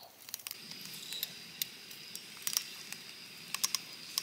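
Campfire cooking: a steady sizzling hiss with scattered sharp pops and snaps.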